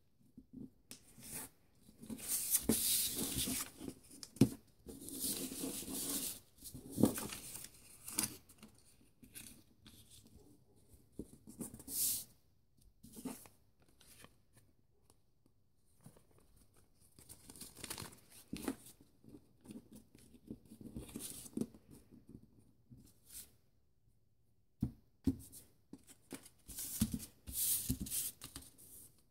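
Sheets of printer paper being handled and folded by hand: rustling, crinkling and creasing in uneven spells, with short quiet gaps and a few sharp clicks.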